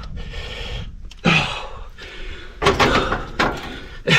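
Several sharp clunks and knocks of metal parts being handled on an excavator during engine servicing, four of them spread across a few seconds.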